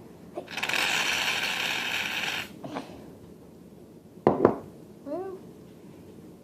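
Aerosol shaving cream can spraying a hiss for about two seconds, the can nearly empty. A sharp knock follows a couple of seconds later.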